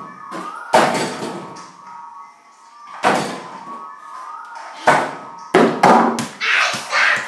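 A small ball thudding against an over-the-door mini basketball hoop's backboard and the hollow door beneath it, and bouncing on the floor: about five knocks, the last few close together near the end.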